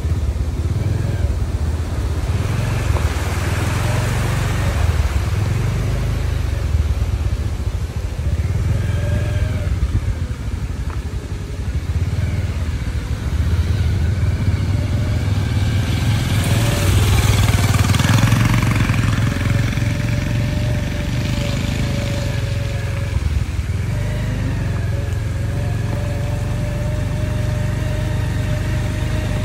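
Motorbike engine running steadily while riding, heard from the pillion seat, with a louder rushing swell a little past halfway.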